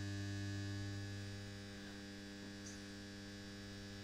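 Steady low electrical hum of a running Peerless Magnarc carbon arc lamp, with many overtones, easing slightly in level about a second and a half in.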